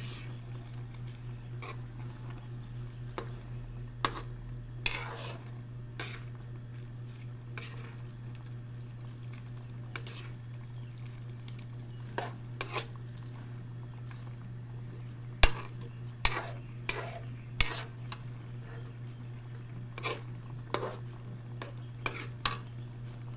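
Metal utensil clinking and scraping against cookware while handling beef steak, in irregular knocks that come thickest and loudest about two-thirds of the way through, over a steady low hum.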